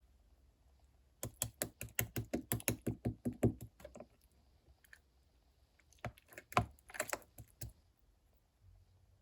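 Clay or slime being squeezed and mixed by hand: a quick run of sticky clicks, about seven a second, then a second shorter cluster of clicks a couple of seconds later.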